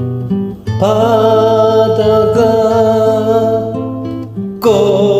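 A karaoke backing track with acoustic guitar plays under a singer who holds one long sung note starting about a second in, then begins a new phrase ("타다가") near the end.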